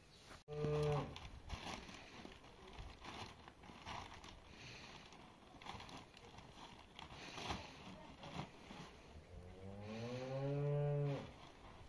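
A shovel scraping and scooping into a heap of dry küspe feed, with a short low cattle call about half a second in. Near the end comes a long cow moo, rising a little in pitch, which is the loudest sound.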